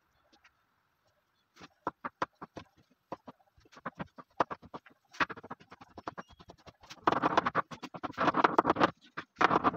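A kitchen knife chopping roasted vegetables on a wooden cutting board. Separate sharp knocks start about a second and a half in. In the last few seconds they quicken into fast, continuous chopping, which is the loudest part.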